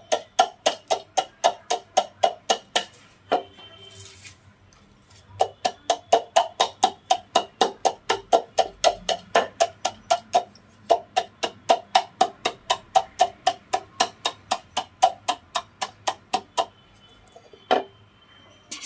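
Wooden pestle pounding crushed naphthalene (mothball) powder in a wooden mortar: a fast, even run of knocks, about four to five a second. It stops for about two seconds a few seconds in, resumes, and stops near the end with one last knock.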